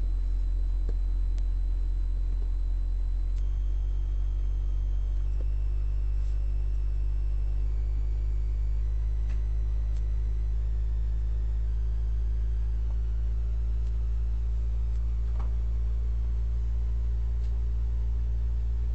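Steady low electrical hum, like mains hum picked up by the recording, with faint thin tones above it.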